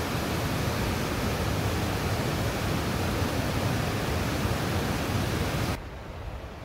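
Whitewater of a rocky mountain river rushing steadily over boulders. It cuts off sharply near the end.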